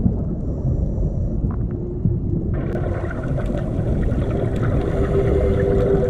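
Underwater ambience: a steady low rumble of water with faint held low tones. About two and a half seconds in, the sound changes abruptly and takes on added hiss and faint crackling ticks.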